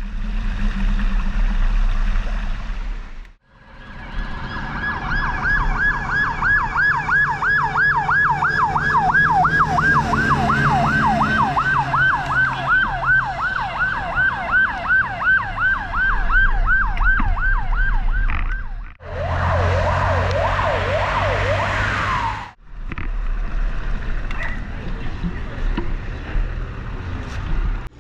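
Emergency vehicle siren in a fast yelp, rising and falling about three times a second for some fifteen seconds. After an abrupt cut it sounds in a slower, lower wail that ends in a falling glide. Before and after it, across further abrupt cuts, there is a steady rushing background.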